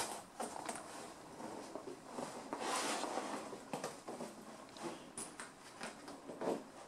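Faint rustling of a nylon puffer jacket as it is fastened by hand, with a few small clicks.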